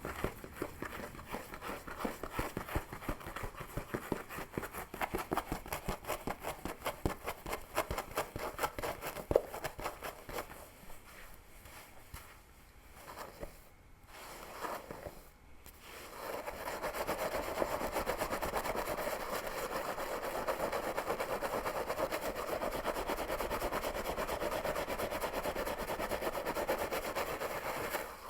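Fingernails scratching a scalp and working through hair close to the microphone: rapid crackly strokes for about ten seconds, a lull, then from about sixteen seconds in a fast, unbroken scratching that stays steady.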